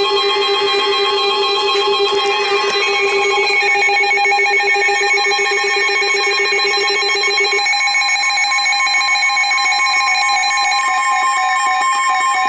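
Several weather alert radios sounding together for a severe thunderstorm warning: a steady, high warning tone near 1 kHz from the broadcast, layered with the radios' own beeping and warbling alarm tones. The lowest of these tones stops a little past halfway.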